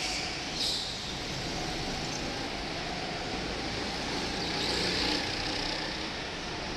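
Go-kart engines running as karts drive around an indoor track, with a brief louder burst under a second in and a swell about four and a half to five seconds in as karts pass close.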